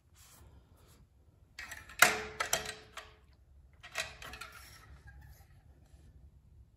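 A few sharp knocks and clicks of hard parts being handled, the loudest about two seconds in and another about four seconds in, each leaving a short ringing note.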